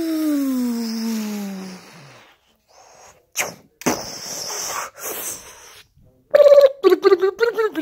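A child's voice making toy-battle sound effects: a long falling tone that slides down in pitch and fades over the first two seconds, a few brief knocks of toy pieces around the middle, then a rapid choppy run of vocal noises near the end.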